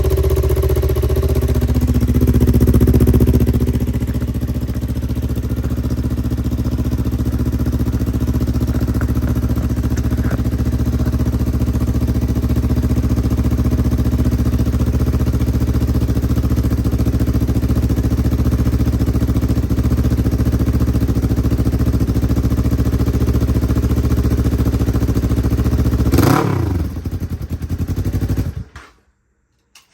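Motorcycle with an aftermarket iStunt racing exhaust idling steadily, with a slight rise in revs about two seconds in; the exhaust has a small air leak at a loosely clamped joint. Near the end the engine is switched off and winds down, falling in pitch, then stops.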